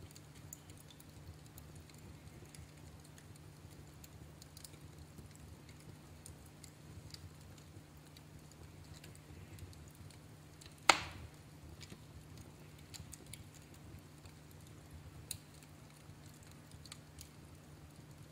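Fire crackling in a fireplace: scattered small pops and ticks, with one loud sharp pop about eleven seconds in and a smaller one a few seconds later.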